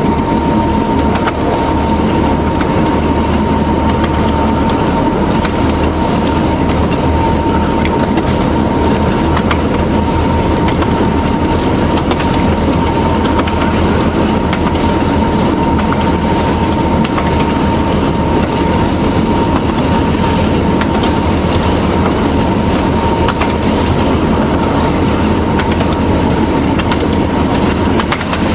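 TU7A narrow-gauge diesel-hydraulic locomotive under way, heard from inside the cab: the diesel runs steadily with a constant high whine over it, while the wheels click over the rail joints.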